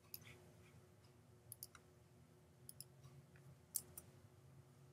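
Near silence with a handful of faint, scattered clicks from operating the computer while the drawing tool's settings are changed, the clearest about four seconds in.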